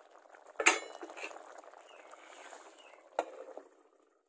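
A stew bubbling in an iron kadai (wok), with two sharp metal clanks from a metal lid, about half a second in and again about three seconds in, as it is set on the wok. The bubbling dies away near the end once the lid is on.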